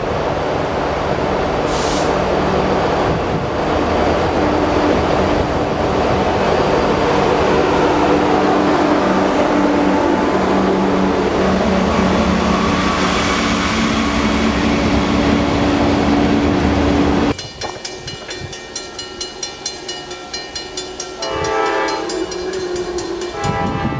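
A Norfolk Southern train running past with diesel locomotive engines and rolling noise. The sound cuts off suddenly, and a locomotive's multi-note air horn then sounds, growing louder near the end.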